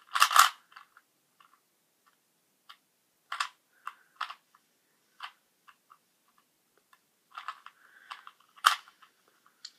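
Plastic Rubik's cube being twisted by hand: irregular clicks and clacks as its layers are turned. The loudest come just after the start and near the end.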